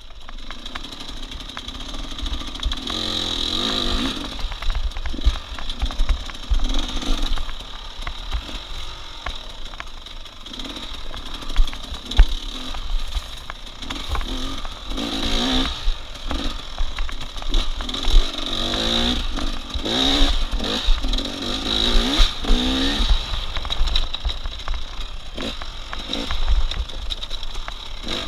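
A competition vehicle's engine run hard, its pitch climbing and dropping again and again as it goes through the gears, with scattered clatter and knocks.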